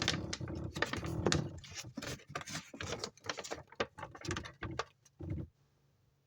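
Trading cards and their cardboard-and-plastic packaging being handled: a dense run of rustling, crinkling and small clicks that stops about five seconds in.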